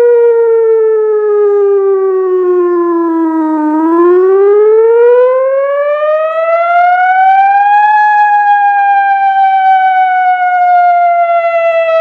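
ATI HPSS-32 electronic outdoor warning siren sounding its wail tone, loud. The single pitch glides down for about four seconds, rises for about four, then starts falling again.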